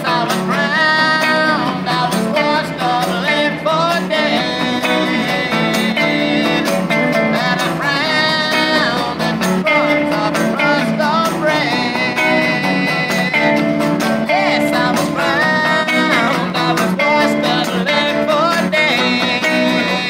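Live street performance of two guitars: an electric guitar through a small practice amp plays lead lines with bent and sliding notes over an acoustic guitar keeping the rhythm, in a rock-and-roll style.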